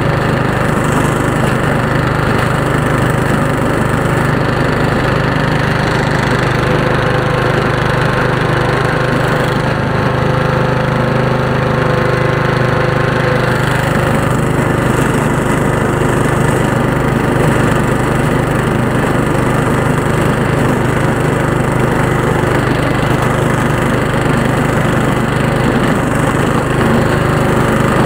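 Riding garden tractor's engine running steadily while the tractor pushes a 48-inch snow blade through snow, a constant unbroken drone.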